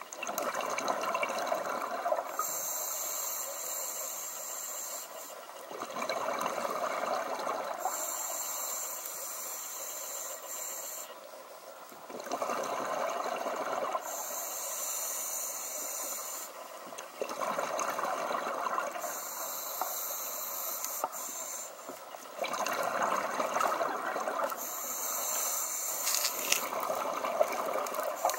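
Scuba diver breathing through a regulator underwater, about five breaths. A high hiss on each inhale alternates with a louder rush of exhaled bubbles, roughly every five to six seconds.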